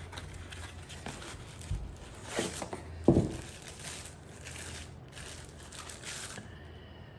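Cardboard box and packaging rustling and crinkling as a parcel is unpacked by hand, with a couple of louder handling knocks a little past two and three seconds in.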